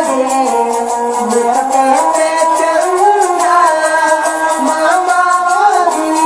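A voice singing a folk-style melody with gliding, held notes over musical accompaniment, with a steady rattling percussion beat.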